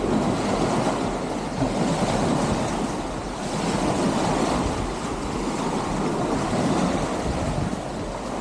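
Small Puget Sound waves breaking and washing up a sandy, pebbly beach, the surf swelling and easing every two to three seconds. Wind rumbles on the microphone underneath.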